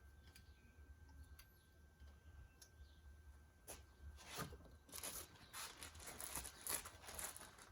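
Faint clicks and light metallic scraping from about four seconds in, as small metal parts, the universal joint's bearing-cap retainers and screws, are handled and fitted by hand on the driveshaft yoke.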